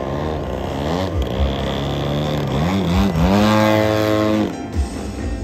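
Engine of a large radio-controlled aerobatic airplane running in flight, its pitch rising and falling as it changes throttle and passes. It is loudest about three seconds in and cuts away sharply about a second later.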